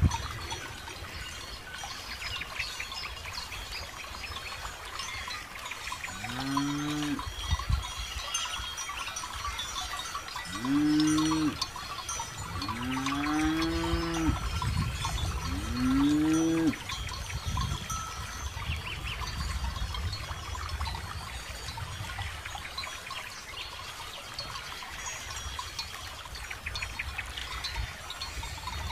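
Cattle mooing four times in the middle, each call rising then falling in pitch, over a steady clinking of cowbells.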